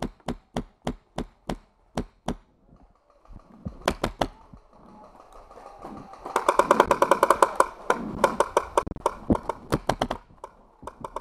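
Paintball markers firing: single shots about every half second at first, a couple more near four seconds in, then a rapid burst of many shots from about six to nine seconds in, with scattered shots after.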